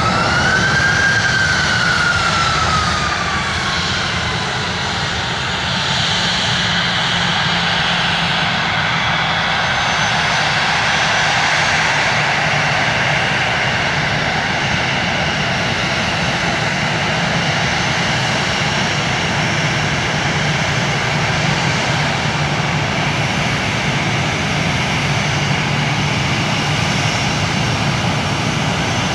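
Airbus A320 jet engines running at taxi power as the airliner taxis by: a steady rumble and whine. A high whine rises and then falls away over the first few seconds.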